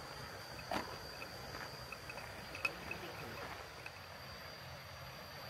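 Insects trilling steadily as one continuous high tone, with scattered short chirps and a couple of faint taps.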